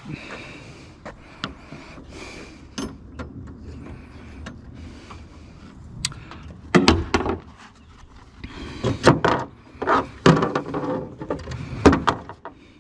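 Irregular knocks, clanks and rattles of gear being moved and latched down. There are scattered light taps at first, then loud clusters of knocks about seven seconds in and again from about nine to twelve seconds.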